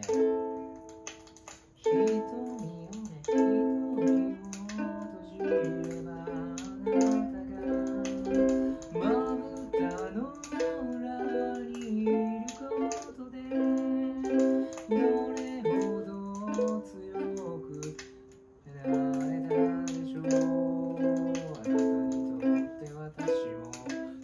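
Ukulele strummed in chords at a steady rhythm, a beginner practising a song. The strumming breaks off briefly about three-quarters of the way through, then starts again.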